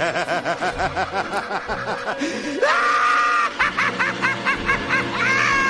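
A man's maniacal cackling laugh, a Joker-style laugh: quick pitched 'ha-ha' syllables about six a second, broken twice by a rising, held high shriek of a laugh.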